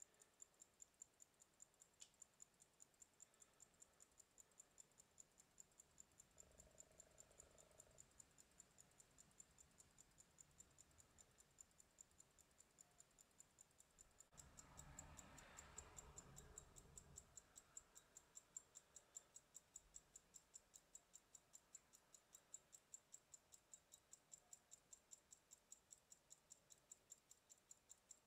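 Antique Waltham Grade No. 1 pocket watch's lever escapement ticking faintly, in a rapid, even beat: the watch is running. A brief patch of faint background noise rises under the ticking near the middle.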